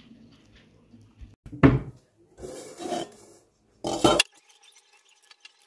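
Kitchen cookware handled on a stone counter: a sharp knock about a second and a half in, some rustling, then a louder clatter of a pot and its lid near the four-second mark, after which the sound cuts off abruptly.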